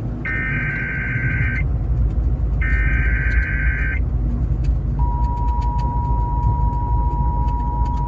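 Emergency Alert System header heard over FM radio: two buzzy digital data bursts of about a second and a half each, then, after a short pause, a steady attention tone that holds for about three seconds, over a low rumble. The bursts are the coded header that opens the warning; the steady tone is the alert signal that comes before the spoken severe thunderstorm warning.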